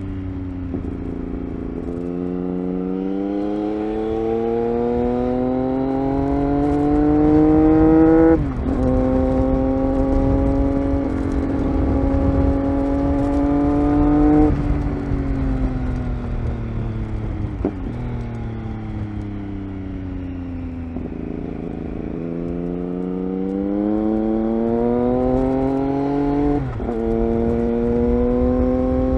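Triumph Speed Triple 1050's inline three-cylinder engine under way. It accelerates with rising pitch, then drops sharply in pitch at an upshift about eight seconds in and holds steady. It falls in pitch as the throttle is rolled off, then rises again to a second upshift near the end.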